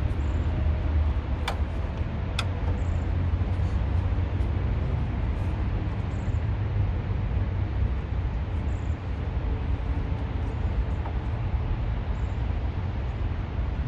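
Steady rumble of traffic on a nearby highway, with two sharp clicks about a second and a half and two and a half seconds in.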